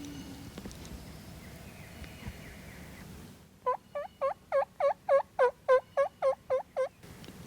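A series of about a dozen turkey yelps, about three a second, starting about halfway through. They swell toward the middle and taper off at the end.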